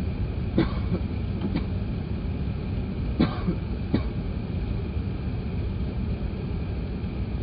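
Steady low cabin rumble of an Airbus A380 with a faint high whine, broken by four brief sharp sounds in the first four seconds.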